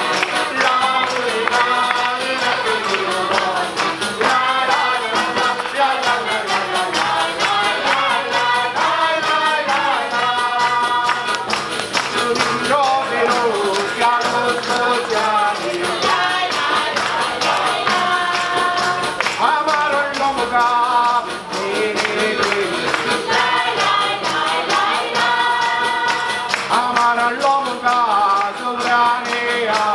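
Sicilian folk song sung by a mixed group in chorus, with ribboned tambourines jingling in a steady fast rhythm and an accordion accompanying.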